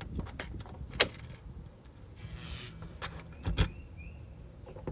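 A door's lock hardware being handled: several sharp clicks and knocks, the loudest about a second in, and a short scrape a little past two seconds.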